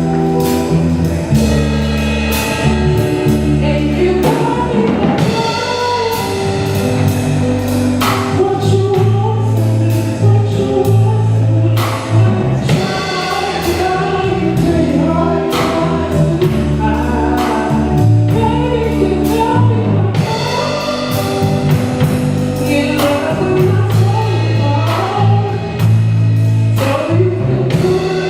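Live band playing a slow soul song, with singing over sustained bass and chords and a drum kit striking a steady slow backbeat.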